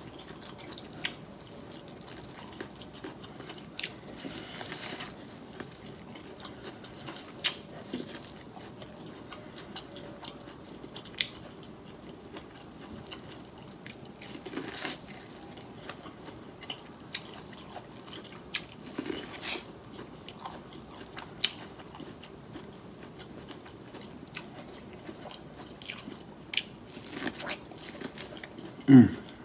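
Biting kernels off a cob of corn and chewing close to the microphone: scattered crisp crunches and wet mouth clicks. A short, louder low sound comes just before the end.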